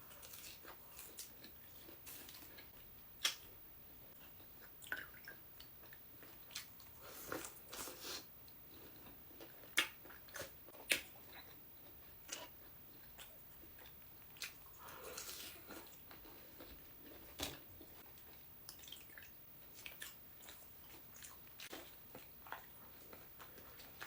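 A person chewing and biting food close to the microphone: irregular crisp crunches and mouth clicks.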